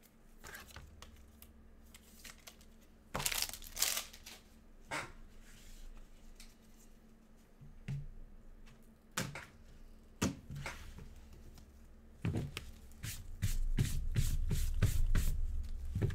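Trading cards being sleeved and handled: plastic card sleeves and toploaders rustling, crinkling and clicking, with a louder crinkle about three seconds in and low bumps of handling on the desk near the end.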